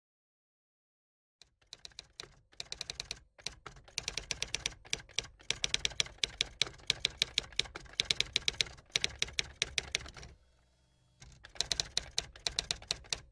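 Typing sound effect: a rapid, uneven run of key clicks starting about a second and a half in, with a brief pause near the end before the clicks resume.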